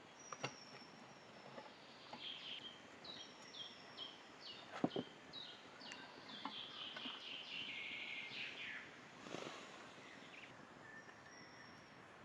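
A songbird singing a quick series of short, repeated chirping notes, with a few sharp knocks or clicks between them; the loudest knock comes about five seconds in.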